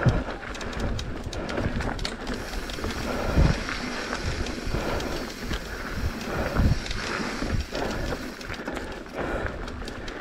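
Mountain bike riding down a rough dirt singletrack: tyres rumbling over the ground, the bike rattling and clicking, with heavier thumps over bumps about a third and two thirds of the way through. Wind on the microphone.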